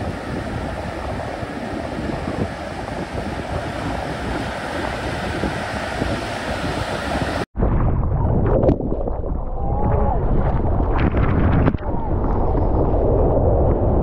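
Ocean surf breaking and washing toward the shore. About halfway through it cuts to wind buffeting and water rushing past a surfboard-mounted camera as the board heads into a big wave, with short splashes.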